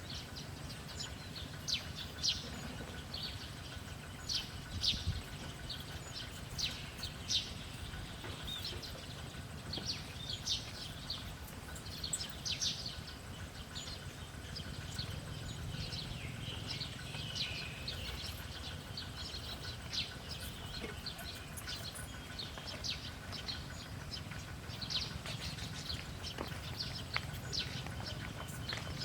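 Small birds chirping, with many short, quick calls scattered throughout over a steady low background hum.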